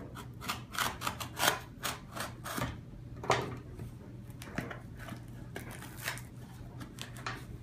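Cardboard shipping box being opened by hand: a quick run of sharp rips and crackles as the tape and flaps are torn in the first three seconds or so, then scattered rustles and clicks.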